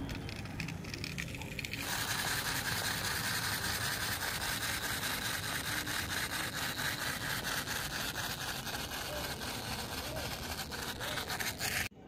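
Small battery-powered toy motor whirring, with a fast, even clicking from its gears; it gets louder about two seconds in and cuts off just before the end.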